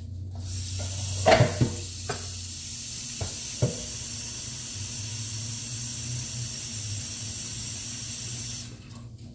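Tap water running into a cooking pot to fill it: a steady hiss that cuts off sharply near the end, with a few knocks of the pot in the first four seconds.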